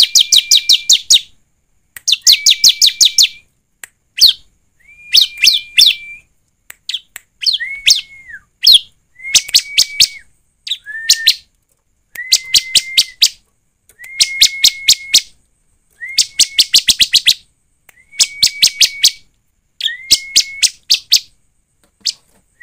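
Bar-winged prinia (ciblek) calling: one-second bursts of rapid, sharp chipping notes over a held whistled note, repeated about every two seconds.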